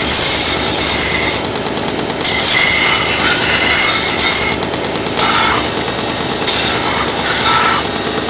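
Wilmont 2x72 belt grinder running a Scotch-Brite belt, with a titanium plate pressed to it in about four passes to take off burrs and soften the corners. Each pass gives a loud grinding hiss, and in the short gaps between passes the free-running belt ticks steadily.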